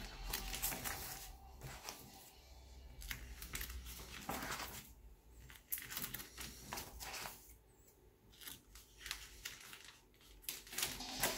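Clear plastic sheet protectors in a ring binder crinkling and flapping as pages are turned by hand, again and again with short quieter gaps between.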